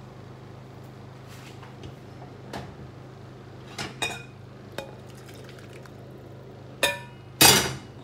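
Metal pan clinking and knocking against a ceramic bowl as its sauce is poured out: a few light taps, then two louder clinks near the end, the last one a longer scrape.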